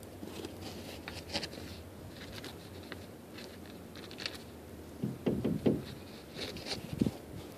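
Snow crunching as a cat plunges and digs through deep, loose snow, in short scattered crunches. A few dull thumps come around five to six seconds in, and the loudest one about seven seconds in.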